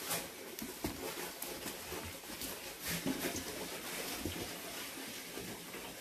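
Kittens scuffling and play-fighting on cardboard boxes: scattered soft taps, scrapes and knocks from paws and bodies on the cardboard.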